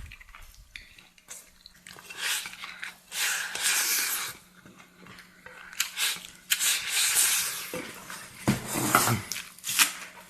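Close-up eating sounds: a person chewing, in several noisy bursts of a second or so, with short clicks between.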